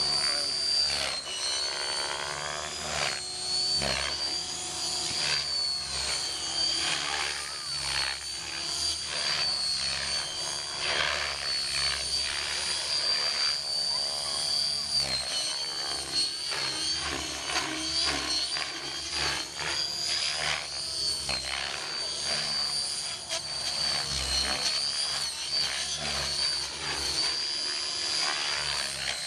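Radio-controlled model helicopter flying aerobatics: a high-pitched rotor and motor whine that wavers in pitch, with the rotor noise sweeping up and down as it flips and passes.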